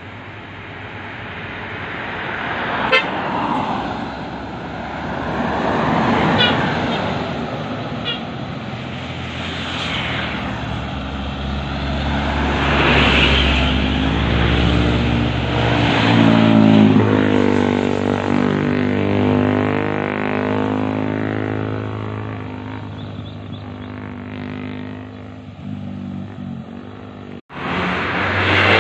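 Road vehicles passing close by one after another, with a few short horn toots in the first several seconds. An engine drone swells and fades as a vehicle passes midway.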